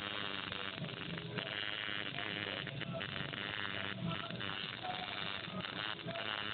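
Coil tattoo machine buzzing steadily while its needle works ink into skin.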